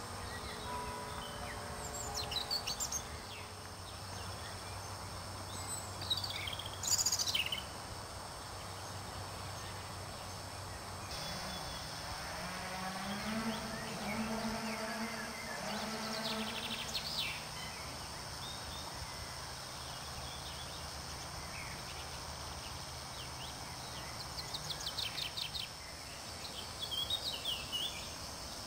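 Small songbirds calling and singing in short phrases at intervals, the loudest call about seven seconds in and a fast trill near the end. Under them runs a steady outdoor background with a low hum that rises in pitch around the middle.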